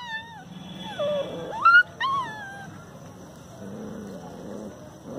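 Puppies whimpering and squealing: a few short, high cries in the first two seconds, most sliding down in pitch, then quieter shuffling.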